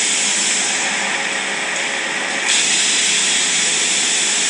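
A 5-axis CNC machine running with a loud, steady hiss. The hiss thins from about a second in, then jumps back to full strength abruptly halfway through.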